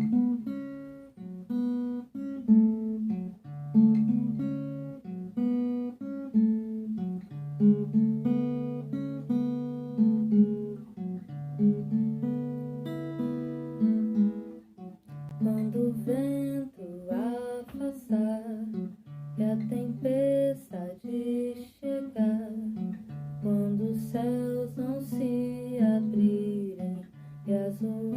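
An acoustic guitar is played with plucked notes over repeating bass notes. About halfway through, a voice starts singing over the guitar.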